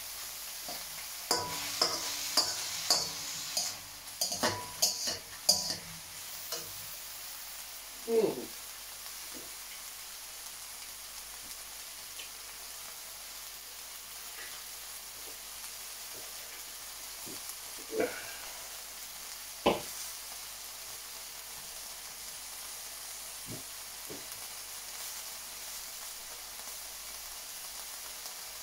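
Beef and vegetable stir fry sizzling steadily in a steel wok. In the first few seconds a metal spatula clatters and scrapes against the wok in quick strokes, and a few single knocks come later.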